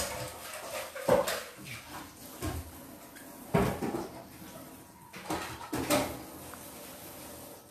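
A dog eating from a stainless steel bowl: chewing and licking, with several irregular sharp knocks as its muzzle bumps the metal bowl.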